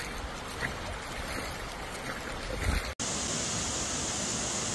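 Steady rushing of water and rain in a flooded street, with a couple of brief low thumps. About three seconds in it cuts abruptly to a steadier, hissier water noise.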